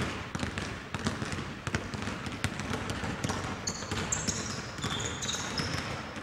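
Several basketballs being dribbled on a gym court, bounces overlapping at an uneven pace, with short high sneaker squeaks on the floor in the second half.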